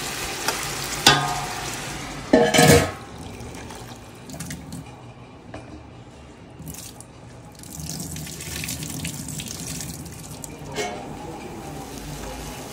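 Sliced onions sizzling in oil in a large stainless steel pot as they are stirred, ending in a short loud clatter about two and a half seconds in. After that, quieter swishing of water as hands wash biryani rice in a plastic bowl at a kitchen sink.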